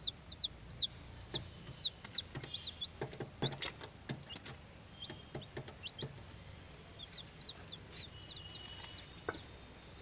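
Baby chicks peeping: short, high-pitched peeps repeated about twice a second, thinning out after the first few seconds. A few sharp knocks come about three to four seconds in.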